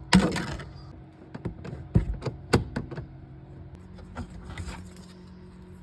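Hand tools and metal fasteners being worked on a car's transmission tunnel: a short scraping rustle at the start, then a run of sharp clicks and knocks, with a few more about four seconds in.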